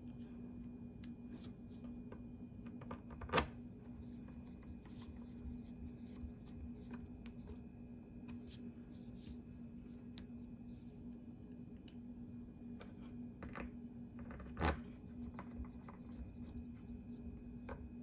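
Light scattered clicks and taps of a screwdriver and small laptop parts being handled on a tabletop, with two louder sharp knocks, one about three seconds in and one about fifteen seconds in.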